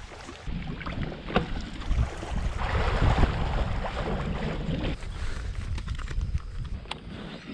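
Wind buffeting the microphone and water rushing past a fishing kayak under way on the lake, a steady low rumble that swells for about a second near the middle. A few sharp clicks stand out, one near the start and one near the end.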